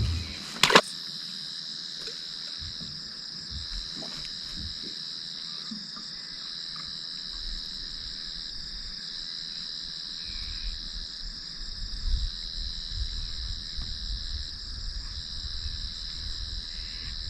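Steady high-pitched chorus of insects trilling, swelling and easing every second or two. A single sharp click just under a second in is the loudest sound, with some low rumbling in the second half.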